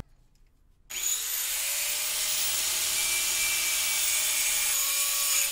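Handheld electric angle grinder switched on about a second in, spinning up and running with a steady high whine and hiss as it cuts off the old water pipe at the faucet.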